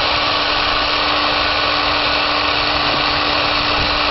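Cordless drill spinning a wire cup brush against an alloy wheel, scrubbing the pitted, corroded surface down to smooth metal: a steady, unbroken whir of motor and wire.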